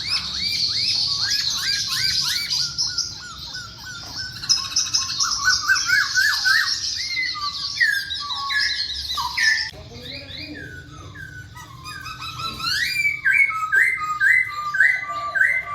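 Poksay Hongkong laughingthrush singing a loud, varied song of rapid chirps and slurred whistles, ending in a run of about six repeated notes.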